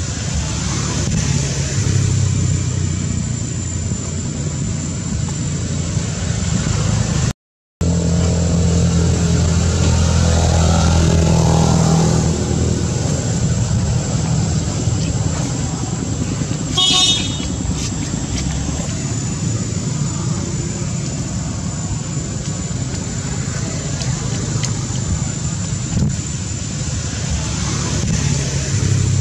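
Steady low engine-like hum, as of vehicles running, under a thin high steady whine, with one brief high-pitched toot about seventeen seconds in. The sound cuts out completely for a moment at about seven and a half seconds.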